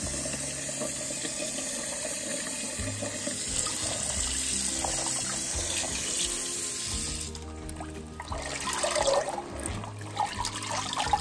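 Kitchen tap running into a bowl of water while a head of butter lettuce is rinsed under the stream. About seven seconds in the flow stops and hands swish and splash the leaves around in the water.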